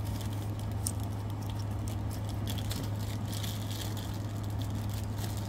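Slime being worked by hands close to the microphone: soft, scattered sticky clicks and squishes. A steady low hum runs underneath.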